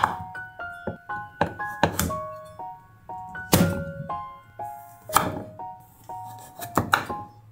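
Kitchen knife chopping through kabocha pumpkin and striking a wooden cutting board: sharp thunks, spaced about a second or two apart at first, then several in quick succession near the end. Light background music with chiming notes plays throughout.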